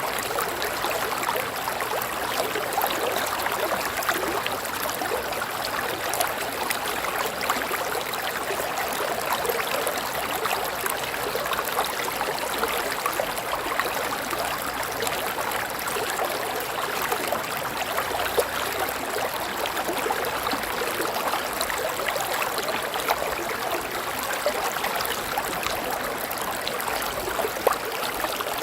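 River water flowing, a steady rushing with fine splashing and gurgling.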